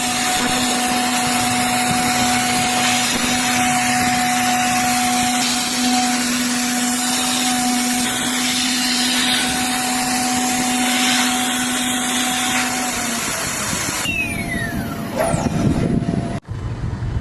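CNC mill spindle milling aluminium, a steady whine over a constant hiss. About fourteen seconds in, the hiss stops and the spindle winds down with a falling whine, and the sound cuts off abruptly just before the end.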